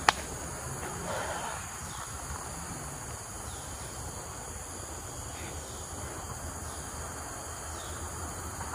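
Steady chorus of insects in tropical undergrowth: a continuous high-pitched buzz.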